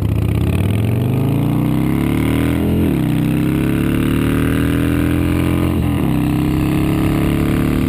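Harley-Davidson V-twin motorcycle engine accelerating hard, its pitch climbing, dropping at an upshift about three seconds in and again about six seconds in, then climbing once more.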